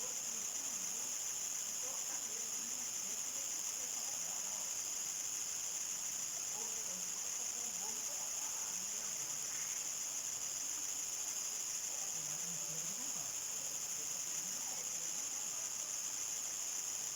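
Crickets chirping in a dense, steady high-pitched chorus.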